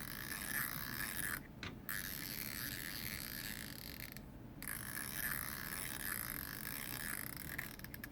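Homemade fidget-toy noisemaker being spun: a zip tie clicking against the teeth of an old clock gear in a rapid, continuous ratcheting rattle, with two short pauses.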